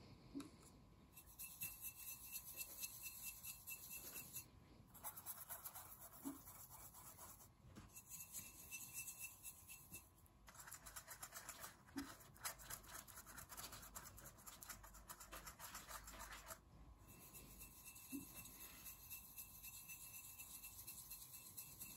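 Paintbrush bristles brushing and swirling wet watercolour paint round a plate, a faint scratchy rubbing that comes in several stretches broken by short pauses.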